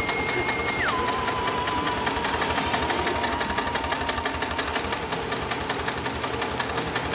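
Sailmaster 366-76-12 heavy-duty industrial zigzag sewing machine stitching a sail reinforcement, its needle and shuttle going in a steady, even rhythm. A thin, high, steady tone drops to a lower pitch about a second in and fades out a little past halfway.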